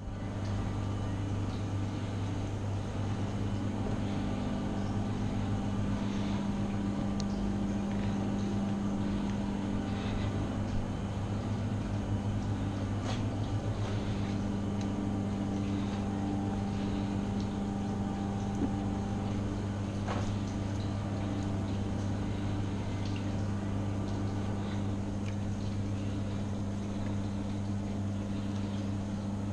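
A steady low machine hum that runs without change, with a few faint clicks over it.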